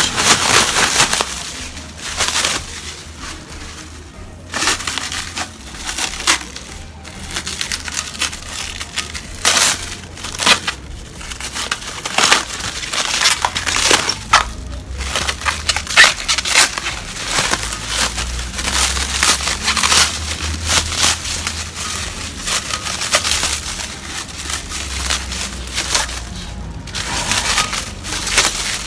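Packaging being handled, torn and crumpled while a newly repainted bike part is unboxed: irregular, loud rustling and crackling with frequent sharp crinkles.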